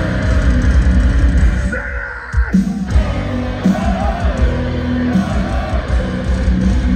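Metalcore band playing live at full volume: distorted guitars and drums kick in at the start, stop briefly about two seconds in, then come back in, with voices yelling over the music.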